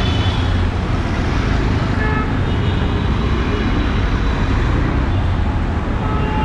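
Steady close street traffic on a wet road: engines of cars and three-wheeled CNG auto-rickshaws running past, with a low rumble and tyre noise, and a few faint short horn toots in the distance.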